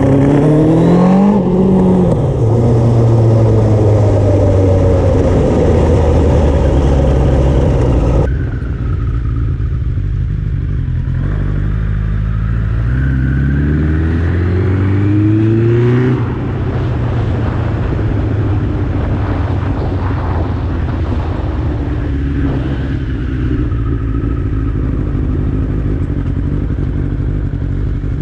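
Suzuki GSX-R slabside streetfighter's inline-four engine under way, revs rising hard about a second in, then falling away as the throttle is rolled off. The revs climb again midway, then settle into a steady, lower cruising note.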